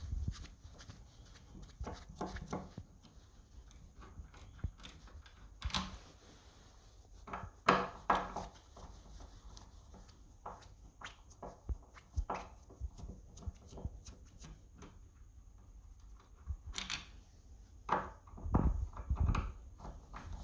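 Scattered clicks, taps and knocks of a screwdriver and door-handle fittings as screws are taken out of a door handle, with a few louder knocks about eight seconds in and again near the end.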